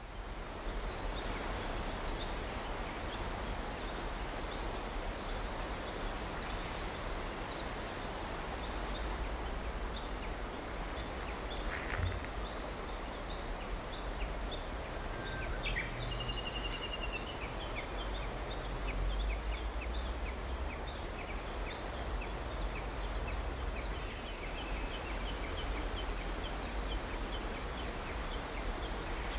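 Steady outdoor ambience: an even hiss over a low rumble, with faint, scattered short chirps and ticks from small creatures.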